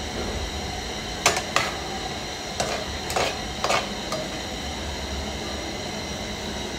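A metal slotted spoon scraping and clinking against a metal frying pan as eggs are stirred, about six sharp strokes between one and four seconds in, over a steady hiss of the eggs frying.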